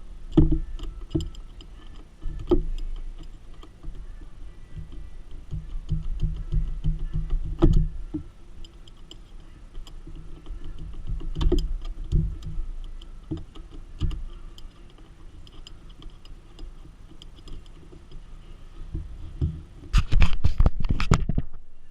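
Hand socket ratchet clicking in short runs while dash bolts are turned in, mixed with scattered knocks of the tool and extension against the dash. A fast, dense run of ratchet clicks comes near the end.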